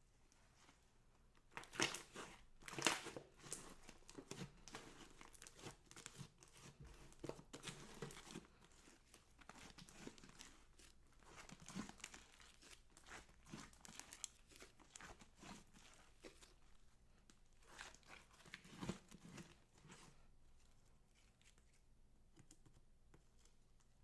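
Hands working a batch of slime, giving irregular sticky crackling and clicking squelches. The loudest pops come about two to three seconds in and again a little before the end.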